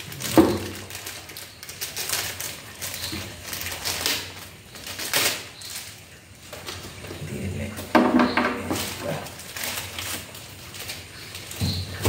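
Plastic bagging crinkling and rustling as it is pulled off, with irregular clicks and clinks of small metal spray gun holder plates and hooks being handled and set down on a tabletop.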